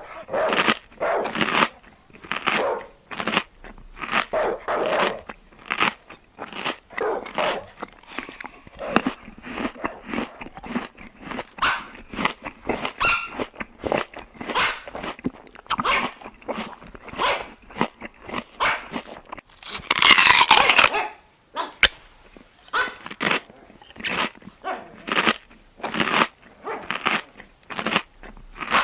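A dog eating crunchy food: a quick, irregular run of crunches and bites, with one louder noisy burst lasting about a second roughly two-thirds of the way through.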